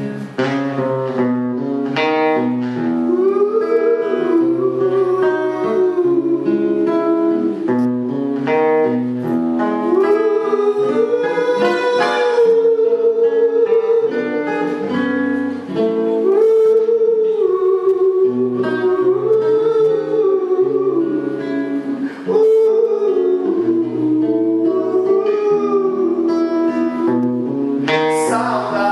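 A man's voice sings a wordless, hummed melody over a plucked nylon-string acoustic guitar.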